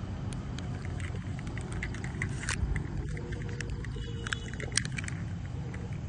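Steady low outdoor rumble with scattered sharp clicks, two of them louder, about halfway and near the end.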